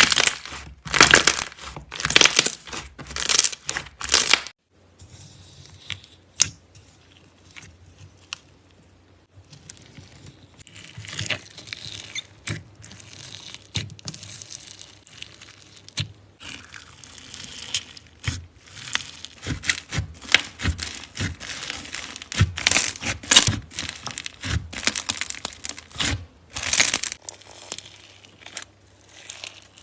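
Slime being squeezed and worked by hand close to the microphone, with crackly textures. About five loud crackles come in the first four seconds. After a sudden cut, quieter, dense crackling picks up from about ten seconds in.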